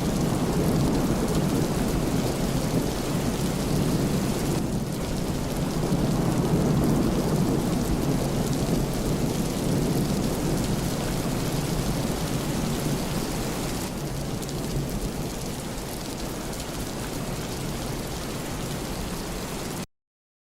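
Steady rain falling, under a long low rolling rumble of thunder that is strongest in the first half and slowly eases. The sound cuts off suddenly just before the end.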